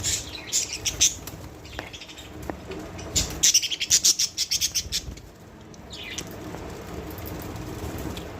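Budgies chirping and chattering in quick, high bursts: one in the first second, a longer run from about three to five seconds in, and a short one near six seconds. The last couple of seconds are quieter.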